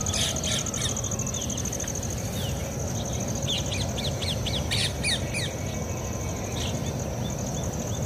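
Ringneck parakeets calling in flight: short, sharp squawks, coming in a quick run about three and a half to five seconds in. Under them run a steady high buzz and a low rumble.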